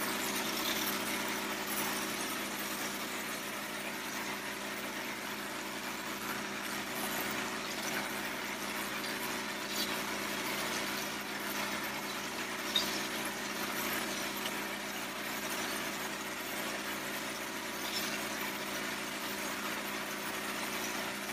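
V Tex 400 stucco spray rig running steadily while spraying a color coat: a constant machine hum under the even hiss of the spray gun. One sharp tick about halfway through.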